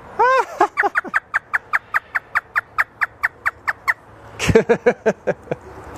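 African grey parrot imitating a hysterical human laugh. An arched opening note leads into a rapid run of short, falling 'ha' notes, about five a second, for around three seconds, then a few lower, voice-like laughs near the end.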